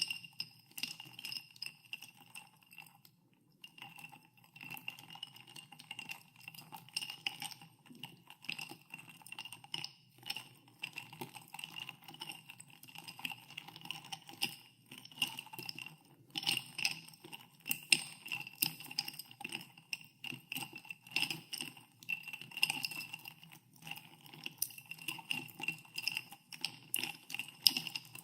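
Ice cubes stirred in a glass of carbonated water, clinking against the glass many times a second, each clink ringing with a high glassy tone. There is a brief pause about three seconds in.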